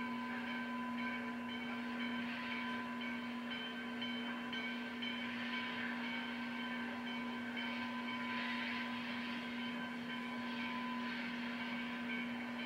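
Steam locomotive working slowly, its steam hissing in soft surges every two to three seconds, under a steady electrical hum.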